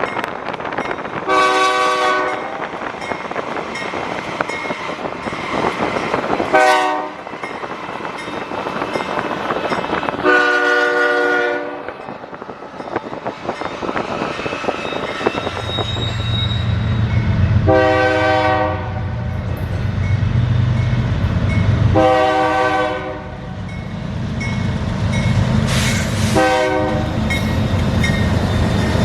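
Freight train's diesel locomotive horn sounding about six separate blasts, each roughly a second long, over steady rail and train noise. From about halfway a steady low engine rumble joins in.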